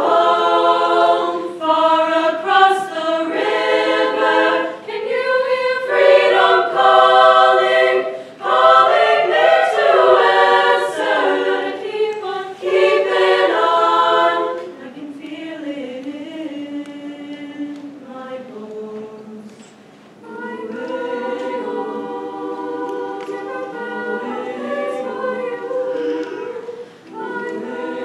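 High-school treble choir of upper voices singing in harmony, loud for roughly the first fifteen seconds, then dropping to a softer, held passage that continues to the end.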